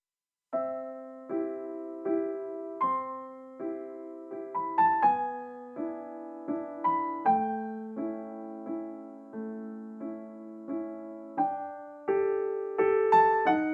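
Slow, gentle piano music beginning about half a second in. Soft chords and single notes are struck at an even, unhurried pace, each ringing out and fading before the next.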